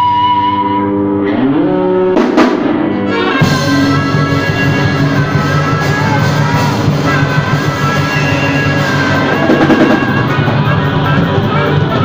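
Live band playing harmonica, electric guitar and drum kit. Held notes and a rising run open the passage, a drum crash comes about two seconds in, and the full band plays on from about three and a half seconds with the harmonica wailing on top.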